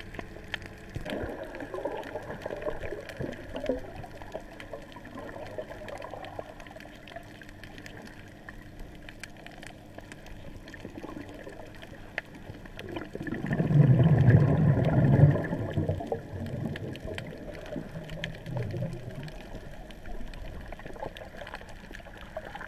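Underwater sound through a camera: a muffled water wash with scattered faint clicks, and a louder, deep gurgling rush about 13 seconds in that lasts a couple of seconds.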